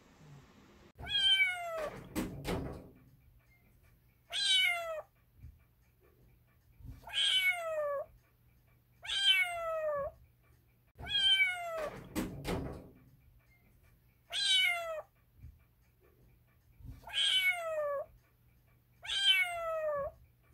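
A calico kitten meowing over and over: eight short, high meows, each sliding down in pitch, every two to three seconds. Two dull knocks come between the first meows and again about halfway through.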